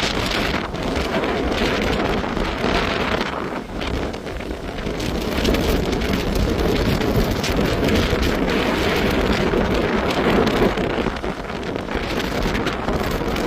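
Hurricane wind and heavy rain: a dense steady roar of rain with wind gusts swelling and easing, the wind buffeting the microphone.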